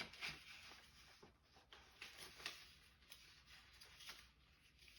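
Faint rustling and light taps of paper being handled and leafed through, in short scattered bits.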